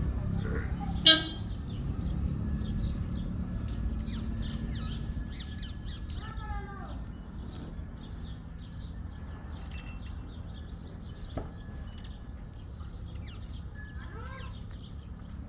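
Birds chirping over a steady low rumble that fades after a few seconds. A single sharp click about a second in is the loudest sound, and a short call of several arched notes comes twice.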